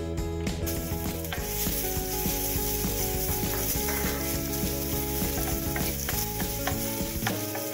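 Minced garlic sizzling in hot olive oil in a pan, the sizzle starting about half a second in as it hits the oil, stirred with a wooden spoon.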